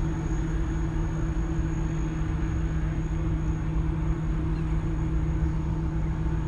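Steady engine drone with a low rumble, holding an even hum throughout with no change.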